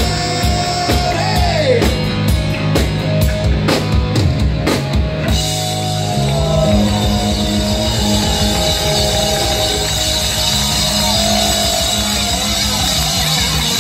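Live rock band playing: a singer over electric guitar, bass guitar and drum kit. Drum hits punctuate the first five seconds, and from about five seconds in the cymbals ring steadily under the vocal.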